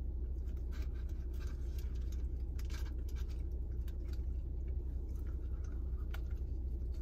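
A man chewing a mouthful of steak, egg and cheese bagel, with many small clicks and crackles, over a steady low hum inside a car.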